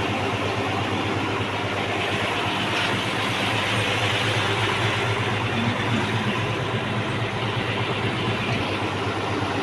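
An engine running steadily at idle, with an even low hum and no change in speed.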